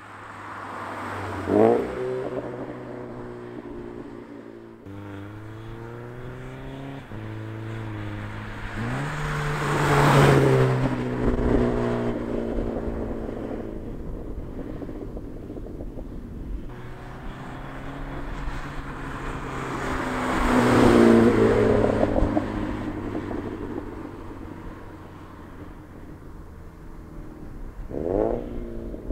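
Subaru BRZ's flat-four engine running through a Nameless Performance catback exhaust, accelerating through the gears, with the revs climbing and dropping back at each upshift. The exhaust note swells loudest about ten seconds in and again about twenty-one seconds in, with brief sharp rev flares about two seconds in and near the end.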